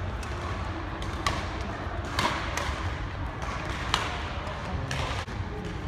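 Badminton rally: rackets striking the shuttlecock with several sharp hits, mixed with the players' shoes thudding on the court, over the steady hum of the sports hall.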